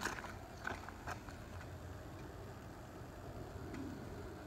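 Faint footsteps on dirt and gravel, a few light crunches in the first second or so, over a low, steady background.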